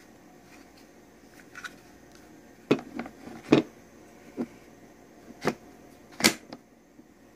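A series of about six sharp knocks and clicks of hard objects being handled and set down, irregularly spaced, the loudest about midway and again near the end.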